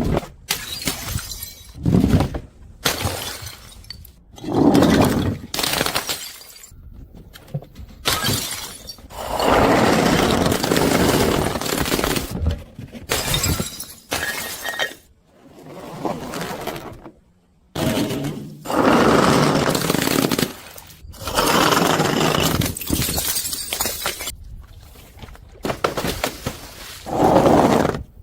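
Glass bottles breaking and shattering one after another: a string of sharp smashes, some of them trailing on for a second or more.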